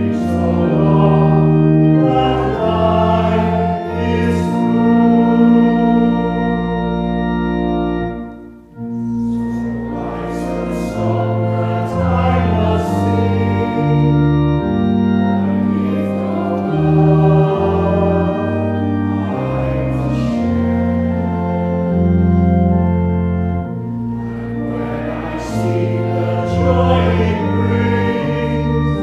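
Congregation singing a hymn together, accompanied by a pipe organ playing sustained chords. Organ and voices break off briefly about nine seconds in, between lines, then carry on.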